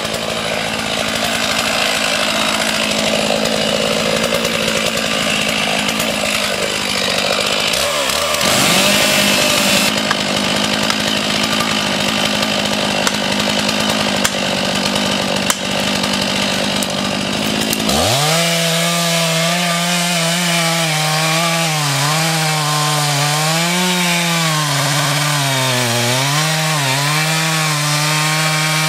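Two-stroke chainsaw running at high revs while felling a beech, cutting into the trunk at its base. From about two-thirds of the way through, the engine note dips and recovers again and again as the saw is worked under load in the cut.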